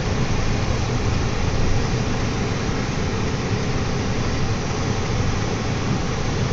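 Steady engine and road noise heard inside a slow-moving car's cabin.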